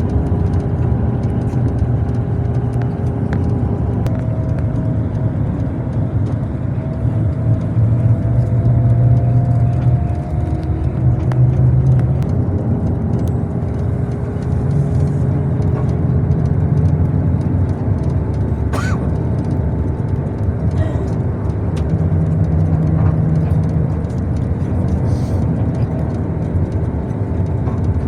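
Excavator's diesel engine running continuously, with a steady whine over it whose pitch shifts now and then.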